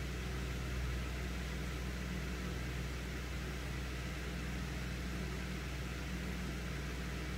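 Steady low machine hum with a faint even hiss, unchanging throughout.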